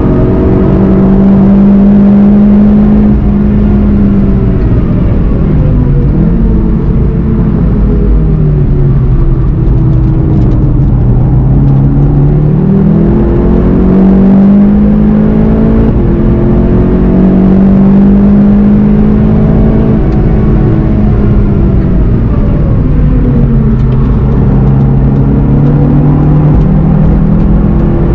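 Volkswagen Golf 7 GTI TCR's turbocharged four-cylinder engine heard from inside the car at track pace. The engine note climbs and falls several times as the car accelerates, brakes and shifts for corners, over a steady road and tyre rumble.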